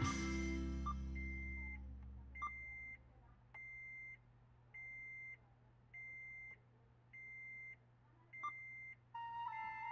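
An electronic beeper sounds a steady high beep about half a second long, seven times at an even pace of a little under one a second. Music fades out at the start and comes back near the end.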